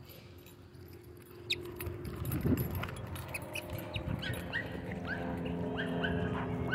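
Dogs playing rough, giving a run of short high whines that each drop in pitch and come faster over the last few seconds, with a couple of thumps before them.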